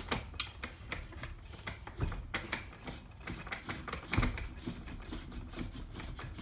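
Irregular clicks, knocks and rattles of a DeWalt 20V Max cordless grease gun being handled, its metal grease barrel fitted to the gun head over a plastic case, with a few louder knocks just after the start, about two seconds in and about four seconds in.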